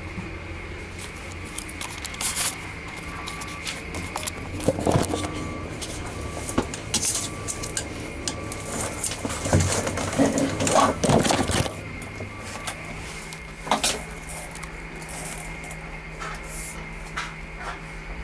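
Scattered clicks, knocks and scrapes of handling, loudest and busiest a little past the middle, over a steady low hum.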